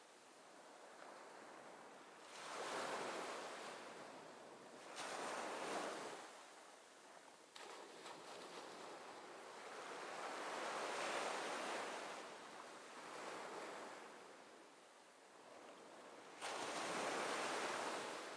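Sea waves washing and surging in swells that rise and fall every few seconds, with a sudden swell near the end.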